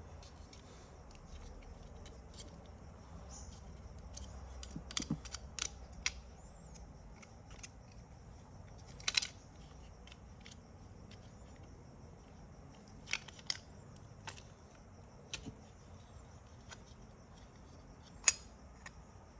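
Small parts of a Toyota Hilux seatbelt retractor clicking and tapping as they are worked apart by hand: scattered single sharp clicks, a few close together about five seconds in, and the sharpest one near the end.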